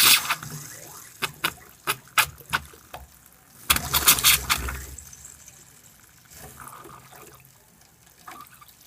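Water faucet sputtering as trapped air clears from the pipes after the water supply is restored: a run of short, sharp spits, a louder gush about four seconds in, then a weaker, uneven flow.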